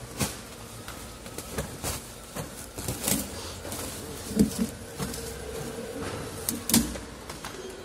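Large plastic cover sheet rustling as it is pulled off a pallet, followed by scattered knocks and clicks, two of them louder in the second half, over a faint steady hum.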